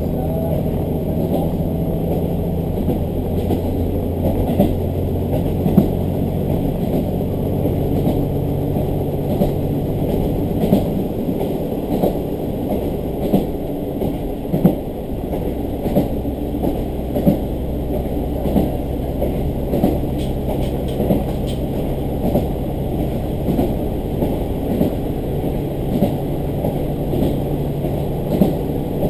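A diesel railcar running along the line, heard from inside the cabin: a steady engine drone whose note changes about halfway through, over rumbling wheels with irregular clicks from the rail joints.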